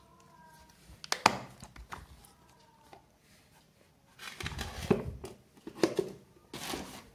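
Clear plastic Pelican-style hard case being opened: a sharp snap of its latch about a second in, then several bursts of plastic knocking and handling noise as the lid is swung open and the case is moved about.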